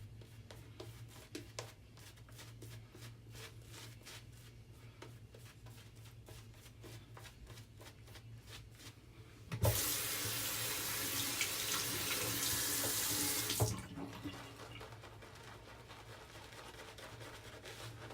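Bathroom tap turned on about ten seconds in, running into the sink for about four seconds, then shut off. Before it there are only faint scattered ticks.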